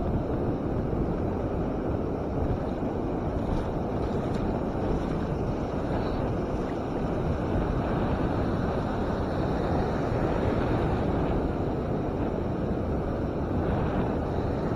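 Ocean surf breaking and washing up a beach, heard under steady wind noise buffeting the microphone.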